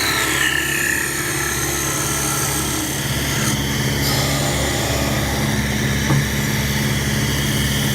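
A CNC woodworking machine running with a steady motor hum and a high whine that falls in pitch at the start.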